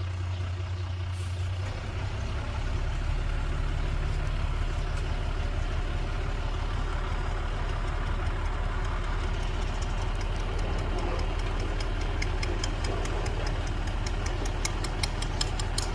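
Heavy diesel engine of construction machinery running steadily; its low note shifts about two seconds in. From about ten seconds in, a fast, regular high clicking joins it, several clicks a second.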